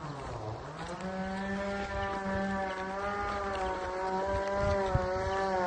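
A motor running with a steady buzzing hum. Its pitch drops briefly about half a second in, then climbs back and holds steady.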